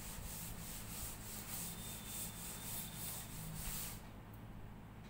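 Blackboard duster wiping chalk off a chalkboard in quick back-and-forth strokes, about three a second, stopping about four seconds in.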